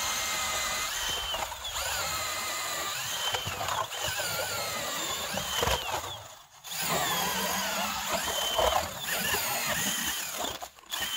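Cordless drill driving an ice auger as it bores a hole through lake ice. It whines steadily, its pitch sagging and rising with the load. It pauses briefly about six and a half seconds in, runs again, and cuts out for a moment near the end.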